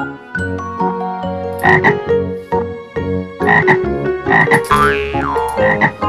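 Several short frog croaks over cheerful children's background music, with a falling whistle-like glide about five seconds in.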